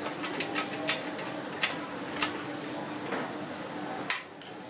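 Irregular metallic clicks and taps of a Phillips screwdriver turning bolts into the metal leg of a vinyl-cutter stand, with a sharper knock about four seconds in.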